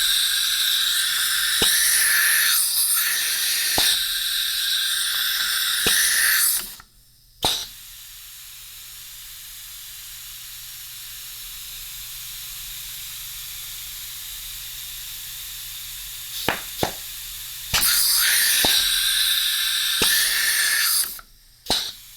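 Compressed air hissing out of a CNC router's auto-tool-changer spindle while its air lines are tested. A loud blast of about seven seconds cuts off sharply and leaves a quieter steady hiss. A few clicks follow, then a second loud blast of about three seconds, and a last click.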